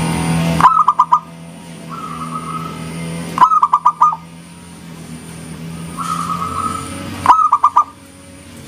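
Zebra dove (perkutut) cooing: three short phrases of quick, clipped notes about three seconds apart, over a steady low hum with softer warbling between the phrases.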